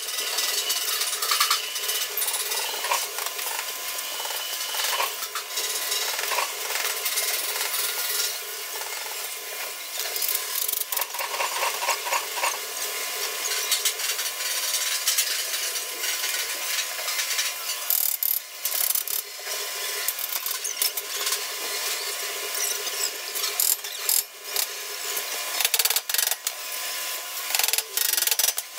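Sped-up workshop noise from metalwork on a sheet-metal table: a fast, uneven clatter of clicks and rasping with little low end.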